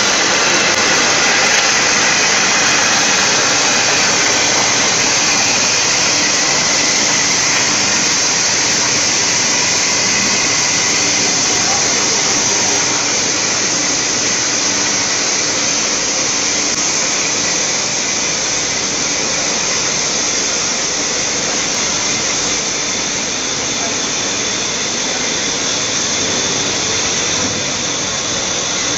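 Steady machinery noise of a sand-washing and belt filter press dewatering plant running, an even, unbroken din with faint steady tones in it.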